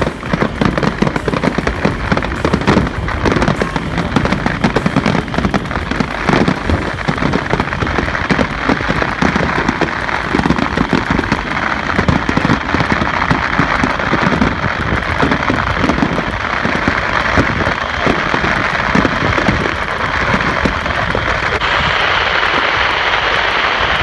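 Fireworks going off in a dense, continuous barrage of rapid bangs and crackling.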